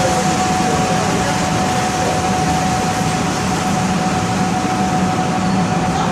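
Montreal Metro MR-63 car running with a steady, single-pitched whine over the train's running noise. The rider puts it down to some kind of mechanical issue and suspects one of the car's ventilation fans.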